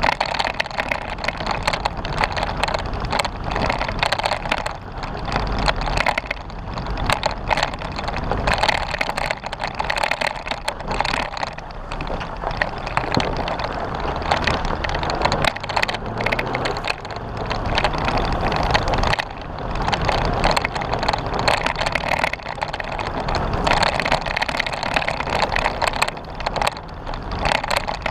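Jeep Wrangler driving off-road on a dirt trail: steady tyre and running noise with many short knocks and rattles throughout.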